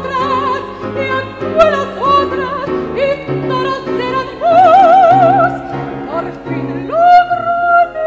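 A woman sings in Spanish in a classical style with wide vibrato, accompanied by piano and accordion. She holds a long vibrato note about halfway through and begins another held note near the end.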